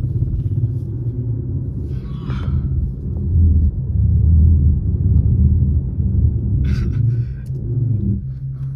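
Low, steady rumble of an Infiniti Q50's 3.7-litre V6 and the road, heard inside the cabin while driving through snow. It swells louder in the middle, with brief hissing swishes about two seconds in and again near the end.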